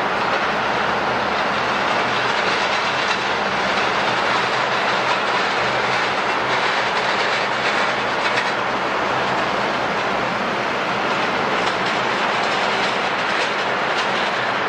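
Jet airliner engines running: a steady, loud rush of noise that neither rises nor falls.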